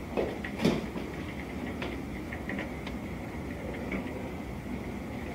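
Diesel tanker truck fire burning: a steady low rumble with scattered sharp pops and crackles, the loudest two within the first second.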